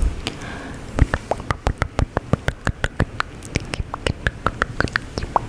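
Close-miked ASMR mouth sounds: quick, irregular wet clicks and smacks, several a second.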